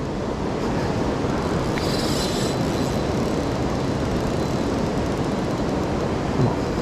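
Steady rush of water pouring over a dam spillway into the river below, an even, unbroken noise.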